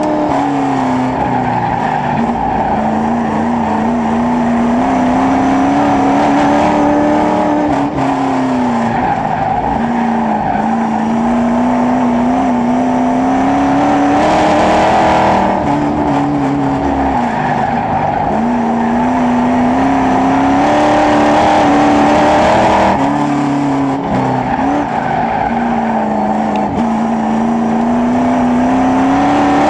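Dirt-track late model race car's V8 engine at racing speed, heard from inside the cockpit. Its pitch climbs along each straight and drops off sharply into each turn, again and again.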